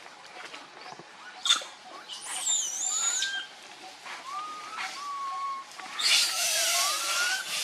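Baby monkey making a string of short, high-pitched squeaking coos that rise and fall in pitch, with a louder harsh, hissy stretch about six seconds in.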